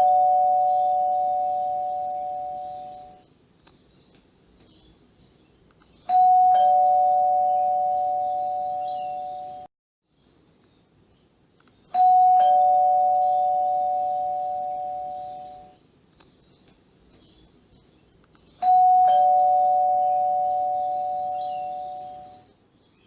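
Two-tone ding-dong doorbell chime rung four times, about six seconds apart. Each ring is a higher note followed by a lower one, both ringing out and fading over about three seconds.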